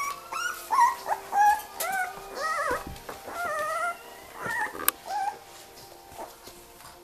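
Puppies playing, giving a run of short high whimpers and yips that rise and fall in pitch. The calls die away about five seconds in.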